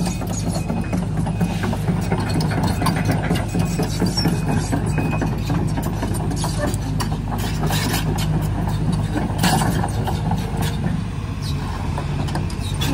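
Link-Belt tracked excavator's diesel engine running steadily as the machine travels off the grass onto pavement, its steel tracks clanking and rattling.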